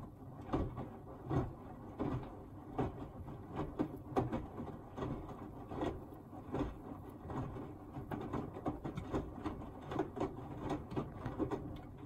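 Hoover Axi front-loading washing machine drum tumbling a small load in water: uneven sloshing splashes and soft thumps, two or three a second, over a low rumble from the drum.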